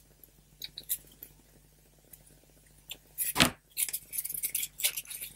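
Handling noises on a craft table: a few faint clicks, a sharp knock about three and a half seconds in, then a run of light clicking and rustling as the folded paper leaf and tools are handled.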